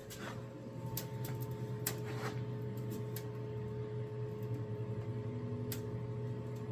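A steady motor hum with a few light clicks and knocks.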